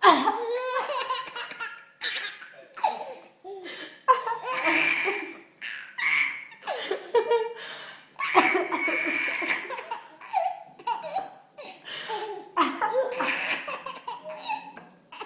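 Baby laughing hysterically in repeated bursts of belly laughs, set off by a woman's coughs, which start sharply about every four seconds.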